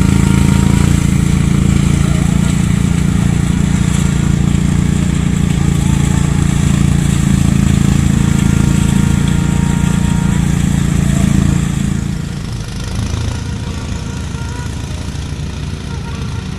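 Engine-driven rice threshing machine running steadily. About twelve seconds in, the sound drops and becomes quieter and rougher.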